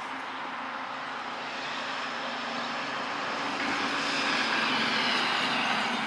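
Steady rush of road traffic noise, swelling louder over the second half as a vehicle passes.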